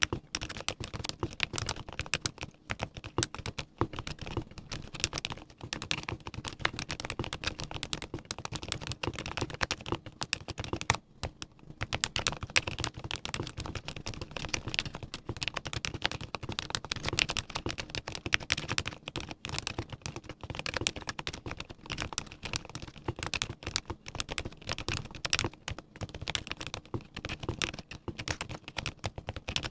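Fast continuous typing on a gasket-mounted custom mechanical keyboard with lubed silent Gateron Ink V2 switches, a brass plate and PBT keycaps: a dense patter of muted keystrokes, with a brief pause about eleven seconds in.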